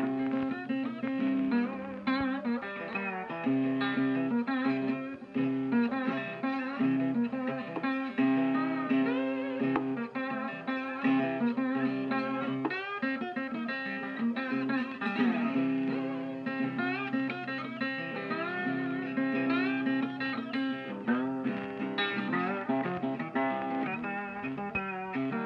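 Instrumental background music led by guitar, with plucked notes and some bending slides over a steady low note.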